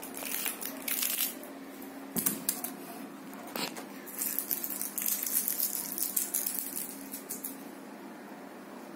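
Foil candy wrapper crinkling and crackling in irregular bursts as a cat paws and noses it, busiest in the middle seconds, over a steady low hum.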